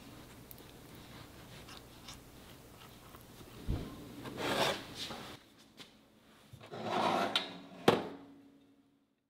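Kitchen handling of a ceramic baking dish: faint brushing and rubbing, a soft thump and a rustling swell about halfway, another swell later, and one sharp knock near the end, the loudest sound.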